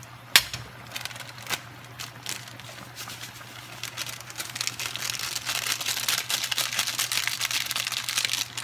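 A foil sachet of powdered sinigang mix crinkling and rustling as it is squeezed and shaken empty over a pot, densest in the second half. A single sharp click comes about a third of a second in.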